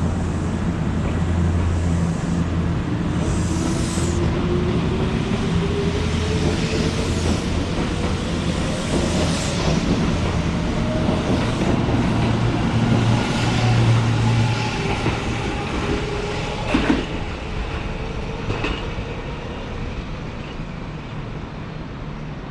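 Kintetsu electric train running through the platform with a steady hum, rail and wheel noise, and a motor whine that rises slowly in pitch as it gathers speed. A sharp clack comes about two-thirds of the way in, and the sound eases off near the end.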